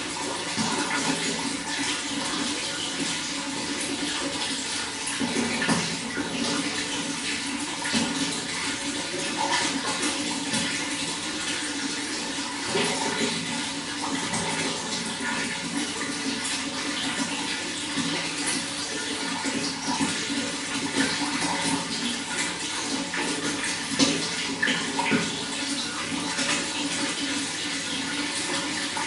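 Running water flowing and splashing steadily, with many small irregular splashes.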